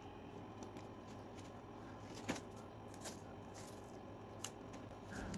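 Quiet room tone with a couple of faint, short clicks, one about two seconds in and one near four and a half seconds.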